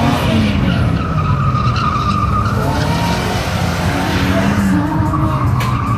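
Polaris Slingshot's four-cylinder engine revving up and down as the three-wheeler drifts, with its rear tyre squealing in a steady high tone. The squeal is strongest from about one to two and a half seconds in and again near the end.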